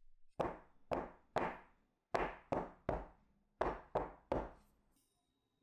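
A metal donut pan full of batter rapped down on the work surface nine times, in three quick sets of three, to knock air bubbles out of the batter.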